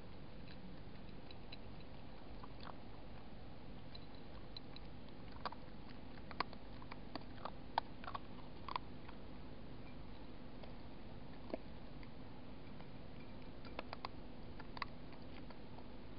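A fox eating from a dish: scattered sharp clicks and crunches of its jaws on the food. They come in a cluster from about five to nine seconds in, singly later on, and again around fourteen seconds, over a faint steady hum.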